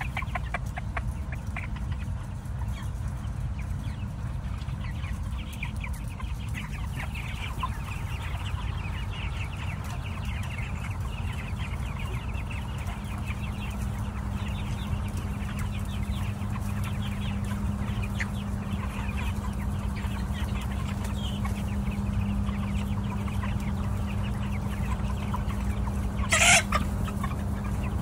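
A large flock of broiler chickens clucking and chirping continuously over the steady low hum of the poultry house's exhaust fans. One short, louder burst stands out about two seconds before the end.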